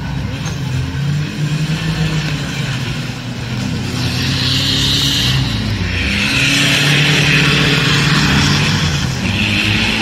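Off-road 4x4 engines running under heavy load as they drive through deep mud, with the throttle opened harder and the sound growing louder from about four seconds in.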